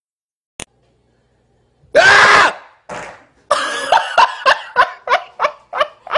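A person's voice: a single loud cry about two seconds in, then a quick run of short, pitched vocal bursts, about three a second.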